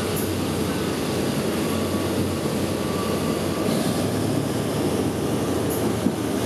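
Train running along the track, heard from aboard: a steady rumble and rush of wheels and running gear.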